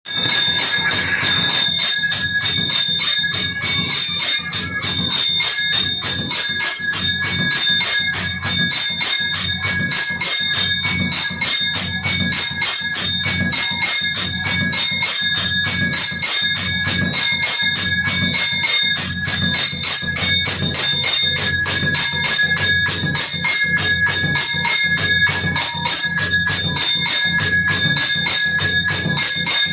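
A metal bell (ghanta) rung rapidly and continuously, its strokes coming in a quick, even rhythm with a steady ringing tone throughout.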